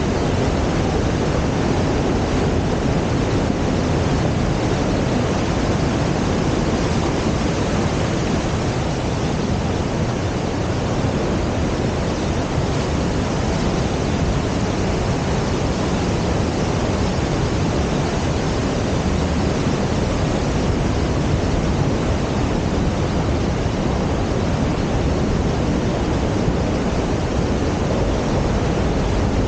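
Mountain creek rushing through a narrow rock gorge over small waterfalls: a loud, steady noise of white water that never lets up.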